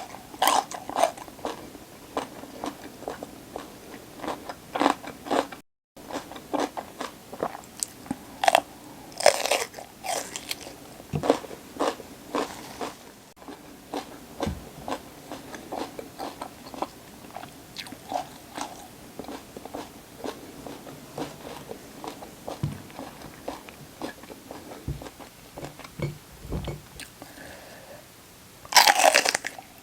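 Close-miked crunching bites and chewing of raw vegetables, crisp and repeated, with a loud burst of crunching near the end. The sound cuts out completely for a moment about six seconds in.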